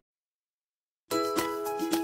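Dead silence for about a second, then a light, cheerful intro music jingle starts suddenly, with notes struck in a quick, even rhythm.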